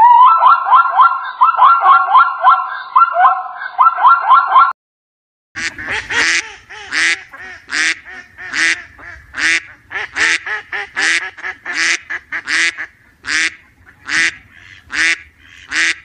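A zebra calling in a rapid run of yelping, barking notes for the first few seconds. After a short pause, domestic white ducks quack repeatedly, about two loud quacks a second, for the rest of the time.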